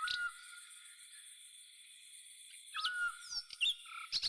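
Common starling singing: short whistles and slurred, falling notes, with a quiet gap of about two seconds in the middle.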